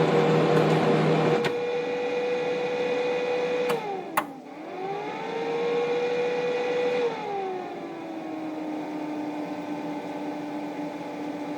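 Brother MFC-7360N laser multifunction printer running with a mechanical whirr and a steady motor whine. The noisy running stops after a second or so and a sharp click comes about four seconds in. Near the middle the whine glides down and settles into a lower, quieter steady hum.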